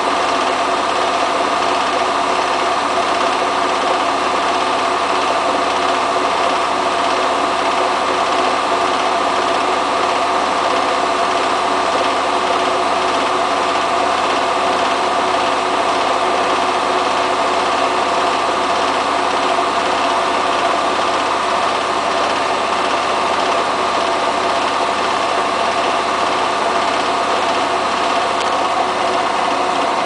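Hotpoint Ultima WT960 front-loading washing machine on its 1600 rpm separate fast spin, the drum running steadily at high speed with a constant whine. The small load of trousers was not balanced before the spin, and the uploader calls it very unbalanced.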